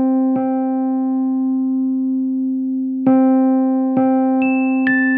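Keyboard music with an electric-piano sound: one low note is struck and held, then restruck about four times. Near the end, higher notes come in one after another, each a step lower than the last.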